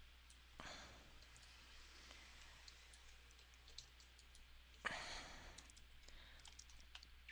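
Near silence broken by faint, scattered clicks of a computer mouse placing points along an outline, with two soft breaths, one about half a second in and a louder one about five seconds in.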